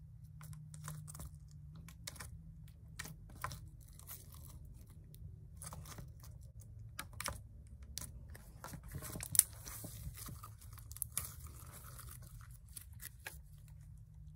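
Green slime being poked and squeezed by hand: irregular sticky clicks and small pops, thickening into a crackly stretch with the loudest pop about nine seconds in.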